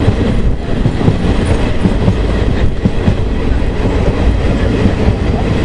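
Passenger train running at speed, heard from inside a coach: a loud, steady rumble of wheels on the track with irregular low knocks.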